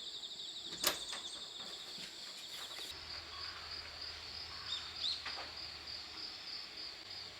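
Insects trilling steadily in a high, pulsing chorus, with a sharp click about a second in and a couple of short rising chirps around five seconds.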